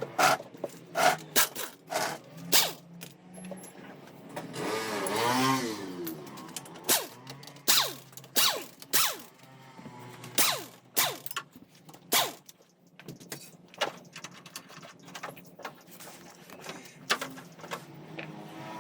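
Metal hand tools clicking, tapping and clinking while taking apart a motorcycle engine, as a series of sharp separate knocks. A short wavering squeal or scrape comes about five seconds in, over a faint steady hum.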